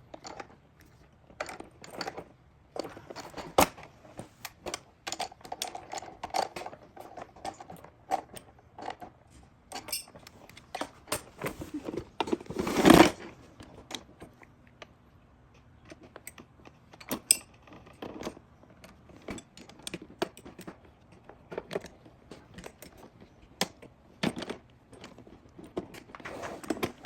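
Metal parts and hand tools clinking, clicking and rattling while a mechanic's creeper is being assembled, with one louder clatter about 13 seconds in.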